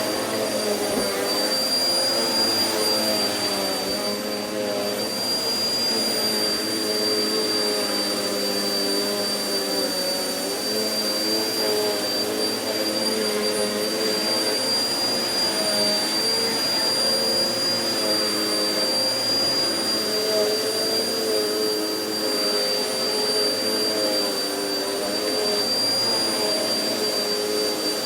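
Vacuum cleaner running steadily over carpet, with a constant high whine and a motor hum whose pitch wavers slightly as it is worked back and forth.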